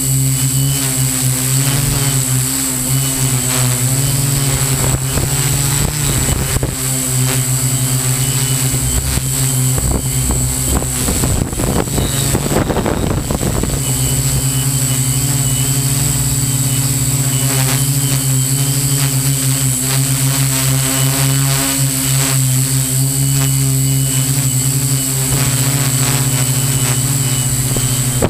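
A model hexacopter's six electric motors and propellers, heard up close from the aircraft itself, running with a steady hum and whine while it hovers and drifts. About twelve seconds in the pitch shifts and a rush of noise comes in briefly, then it settles back to the steady hum.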